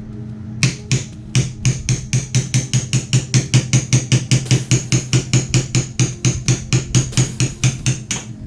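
Hammer tapping a brass punch in a quick steady rhythm, about four to five strikes a second, driving a stuck rod out of the hardware of a Steyr M95 carbine's stock; each strike has a short metallic ring.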